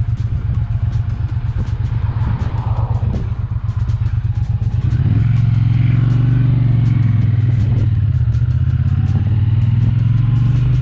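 Triumph Bonneville T120's 1200 cc parallel-twin engine running at low speed through a junction, then pulling away and getting louder about five seconds in.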